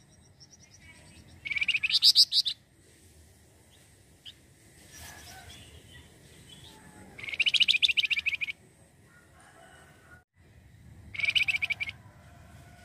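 A flamboyan (Javan fulvetta) singing three rapid trilling phrases of fast repeated high notes, each about a second long, the first about a second and a half in, the second near the middle and the third near the end.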